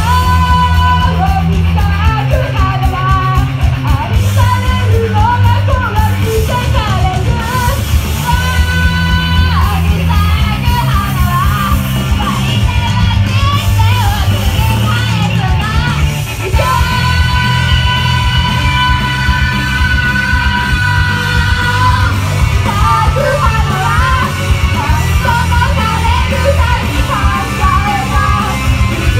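Loud live rock-style pop music with two female vocalists singing into microphones over a heavy, steady bass beat, with long held notes in the middle. Fans yell along in the front rows.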